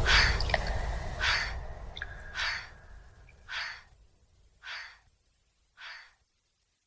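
A short breathy gasp-like sound repeating about once a second, each repeat quieter than the last, as the end of an electronic beat fades out.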